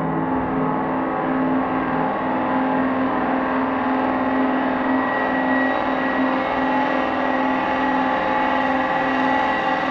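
Digital feedback loop of audio run repeatedly through the Infiltrator effect plugin: a dense, steady electronic drone of many held tones that slowly grows brighter.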